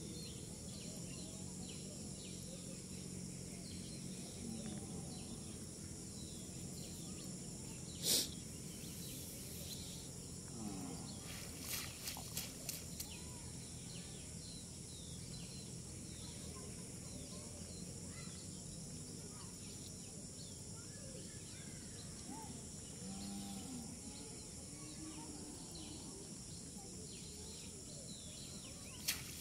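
Steady outdoor background noise with faint animal calls. A sharp knock or splash about eight seconds in, and a few smaller ones around twelve seconds.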